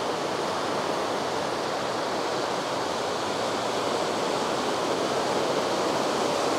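Ocean surf washing up the beach: a steady rushing noise, a little louder in the last seconds.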